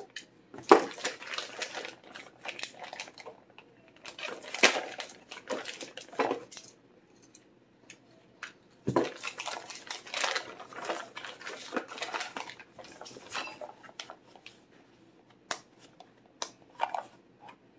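Plastic packing bags crinkling and rustling in irregular bursts as wrapped parts are pulled out of a gun box, with a few sharp clicks of hard plastic near the end.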